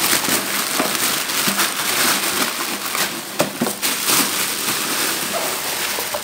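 Thin plastic packaging bag rustling and crinkling steadily, with many sharp crackles, as a blender motor base is pulled out of it.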